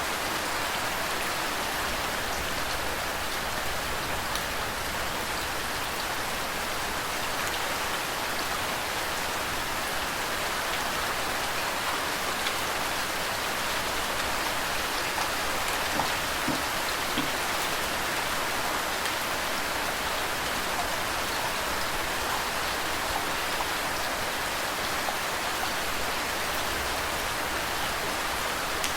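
Steady rain falling, with water flowing underneath: an even hiss with a few faint individual drop ticks here and there. There is no thunder.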